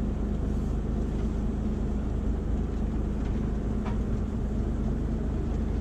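A boat's engine running steadily, a continuous low hum with one constant tone.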